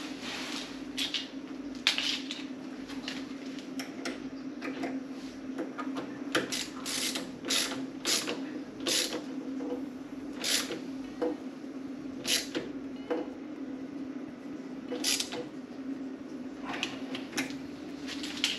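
Irregular short rasping and creaking strokes from hand work on the battery's cable connections, some in quick runs, over a steady low hum.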